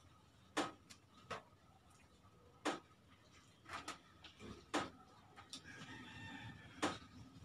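Close-up eating sounds: about six sharp lip smacks and mouth clicks of people chewing food eaten by hand. A rooster crows faintly about six seconds in.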